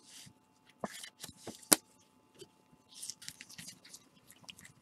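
Baseball cards being shuffled and slid against one another in gloved hands, with soft scraping strokes and scattered clicks. A sharp snap stands out at about a second and a half in.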